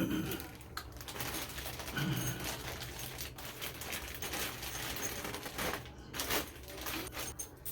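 Irregular clicks, taps and rattles of small shower fittings being handled while a new shower head is fitted.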